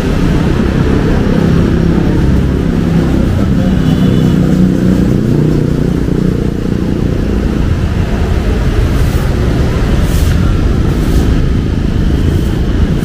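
Street traffic, cars and motorcycles running past, heard as a steady, loud low rumble. A few short high clicks come in the last few seconds.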